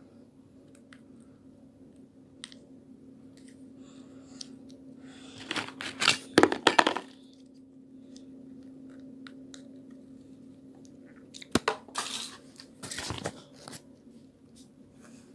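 Crinkling and crackling of a small plastic snack packet being worked at and torn open by hand, in two loud bouts a few seconds apart.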